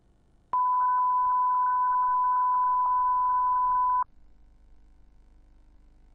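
Line-up test tone that goes with SMPTE colour bars on a video tape: one loud, steady beep at a single pitch, starting about half a second in, lasting about three and a half seconds and cutting off suddenly. A faint low hum follows.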